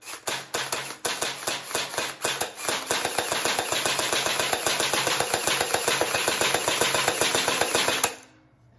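Electric gel ball blaster (AEG) firing on full auto: a rapid train of mechanical shots that starts as separate shots, quickens into a fast continuous stream, and cuts off about eight seconds in.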